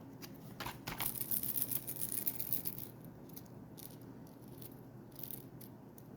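Small hard plastic fishing lure being handled in its plastic bag: light clicks and a shaking rattle for about two seconds, then scattered faint clicks.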